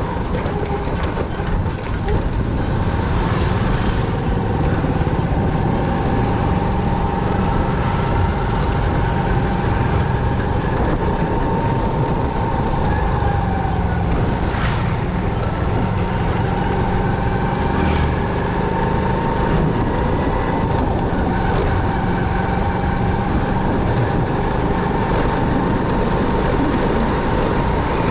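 Motorcycle on the move: steady engine and road noise, with a thin high tone held throughout.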